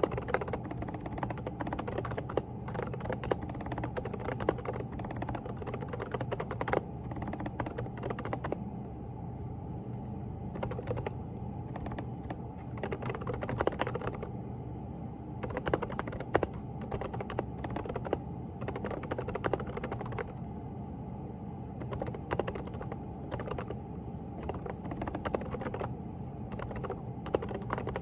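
Steady typing on a Groovestone GV10 mechanical keyboard with hand-lubricated silent Coral 38g switches: irregular runs of soft key clicks with short pauses, over a steady low hum.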